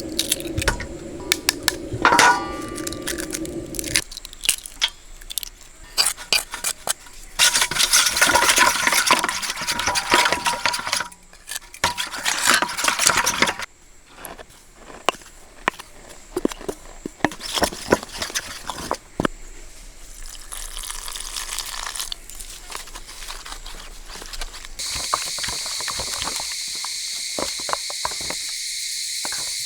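Hands-on cooking sounds: liquid pouring and splashing, with repeated knocks and clatters of utensils against a pot. A dense noisy stretch runs for several seconds in the middle. Near the end a steady chorus of chirping insects comes in.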